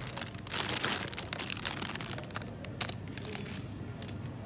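Plastic packaging of a frozen chicken-nugget bag crinkling as it is handled and lifted from a freezer, in dense rustling bursts over the first two seconds, then a few sharper crackles.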